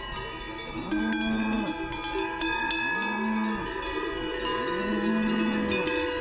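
Many cowbells on a moving herd of cattle clanking and ringing together as the cows are driven along, with cows mooing three times, each moo under a second.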